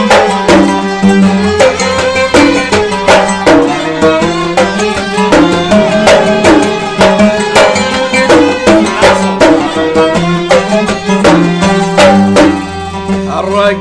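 Kuwaiti sawt ensemble playing an instrumental passage: violins and qanun carry the melody over a steady beat of mirwas hand drums.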